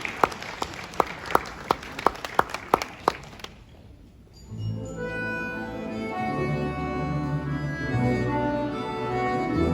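Audience clapping in steady unison, about three claps a second, for roughly three seconds; after a short hush, an orchestra of Russian folk instruments begins a song's introduction with held chords over a low bass.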